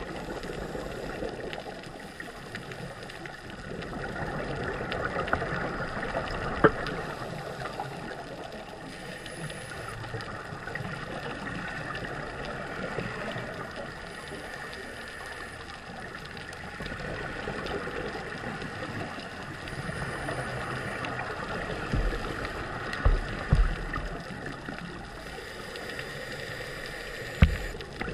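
Muffled underwater sound picked up through a camera housing: a scuba diver's regulator breathing and exhaled bubbles, swelling and fading in slow waves. Several dull knocks come near the end.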